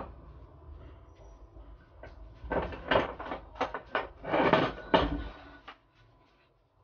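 Scraping and rustling as the motor cable is pulled through the rear housing of a submersible motor, in several bursts between about two and five seconds in, then quieter.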